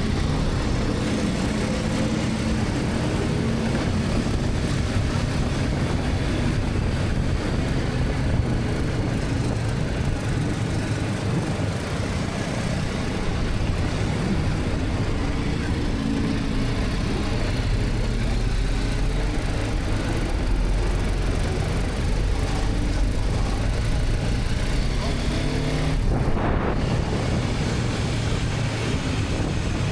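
BMW G310R's single-cylinder engine running under way, its pitch rising and falling with throttle and gear changes, over a steady rush of wind and road noise.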